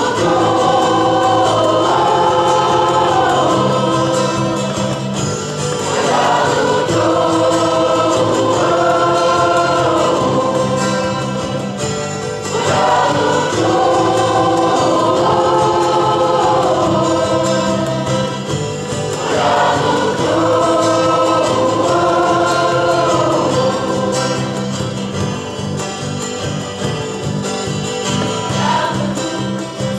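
Mixed choir singing a song in several parts, accompanied by electric and acoustic guitars.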